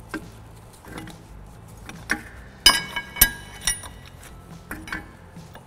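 Steel clinks and taps of a screw-type brake caliper compressor tool being handled and set against the brake caliper, about half a dozen sharp metallic knocks with two loud ringing strikes around the middle.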